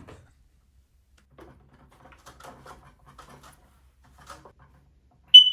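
Faint handling and rustling as a smoke detector is fitted back onto its mounting base, then, near the end, one short, loud, high-pitched smoke detector chirp.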